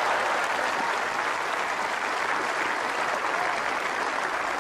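Large tennis crowd in the stands applauding: dense, steady clapping that eases a little after about a second.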